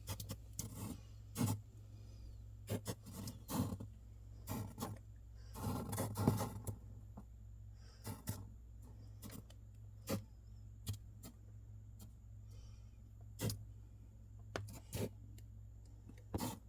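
Freezer running with a faint steady low hum, broken by irregular clicks and short rushing puffs that sound like weird breathing noises.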